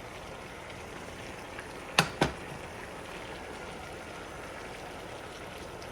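Water in a pot bubbling steadily as it heats toward the boil. About two seconds in come two sharp clicks, a quarter second apart.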